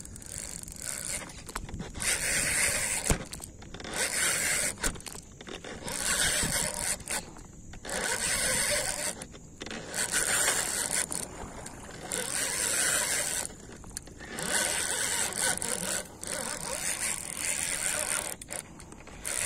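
Spinning reel cranked in short spurts about every two seconds, a whirring hiss of the rotor winding line on, with pauses between. This is a stop-and-go retrieve: the lure is twitched with the rod and given only a few turns of the handle each time.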